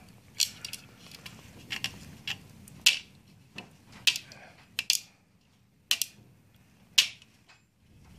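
Fingers picking and prying at an EEPROM chip on a copier's circuit board, trying to get it off: about a dozen sharp, irregular clicks and short scrapes of plastic and metal.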